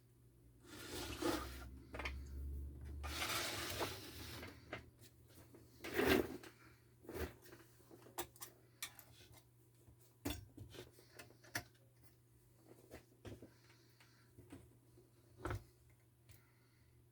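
Hard objects being handled: irregular clicks and knocks with a stretch of scraping and rustling, and a louder knock about six seconds in.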